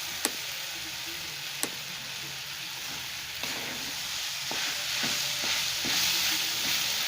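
Okra and tomato sizzling steadily as they are sautéed in oil in a pan with no water added. A spatula strikes the pan with two sharp clicks near the start, then knocks lightly against it several times in the second half.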